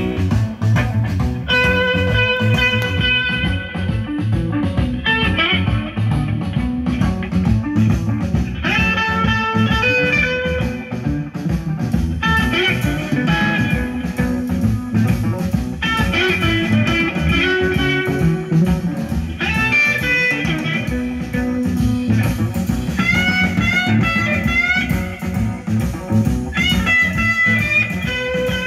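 Blues music with an electric guitar lead, playing held and bent notes over a bass and rhythm backing. It is played back through a Stromberg Carlson 880 G tube amplifier and Yamaha NS-1000 speakers.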